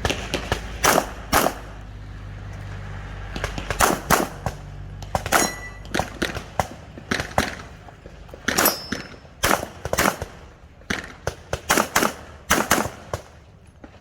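Handgun shots fired in quick, uneven strings, some loud and some fainter, with a pause of about two seconds early on.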